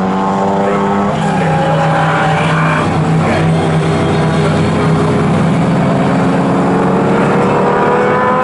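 AC Cobra racing car's Ford V8 accelerating hard out of a corner. The engine note rises, drops back at a gear change about a second in, then climbs again through the next gears.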